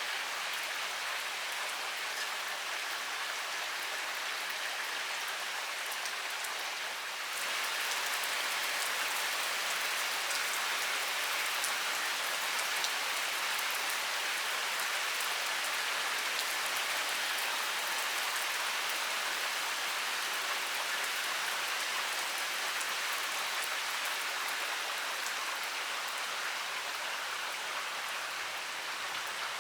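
Heavy rain pouring steadily, with fine ticks of single drops through the hiss. It grows louder and fuller about seven seconds in.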